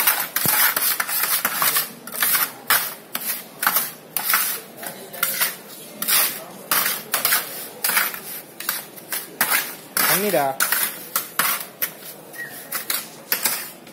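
Hand trowels scraping and scooping a cement, bio ash and sand mortar mix across a metal tray. The strokes are quick and repeated, about two a second.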